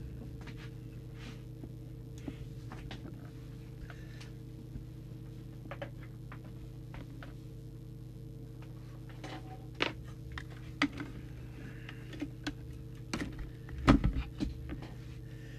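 Scattered light clicks and knocks of a CB radio being handled and reassembled, with a few sharper knocks in the last third, over a steady low electrical hum.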